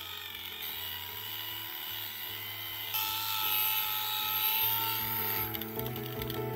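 Electric rotary polisher with a foam pad buffing a car door's paint, a steady high whine that gets louder about halfway through and eases off near the end.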